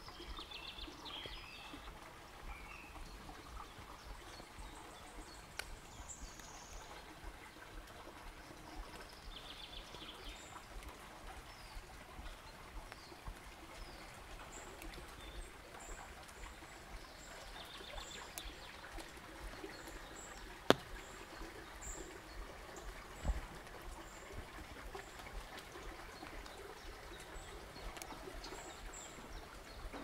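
Small spring-fed forest stream trickling and running steadily, with birds chirping now and then and short high chirps repeating through the second half. Two sharp clicks come about two-thirds of the way in, the first the loudest sound.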